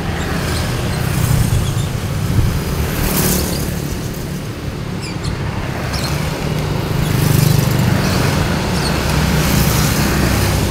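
Road traffic passing close by: motorcycles and scooters and a light truck driving past one after another, their engines and tyre noise swelling as each goes by over a steady engine hum.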